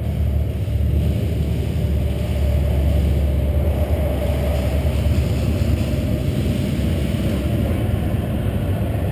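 A steady low rumble with a faint higher hum above it, unchanging throughout.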